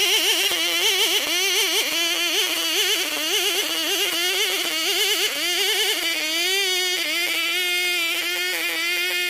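Chinese-made STIHL 070 copy, a large two-stroke chainsaw, ripping lengthwise through an ironwood (ulin) log. The engine note wavers up and down under load, then holds steady about six seconds in.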